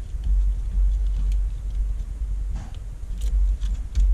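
A steady low rumble, with a few faint taps and rustles from hands pressing tape onto the wires on the back of an LCD panel.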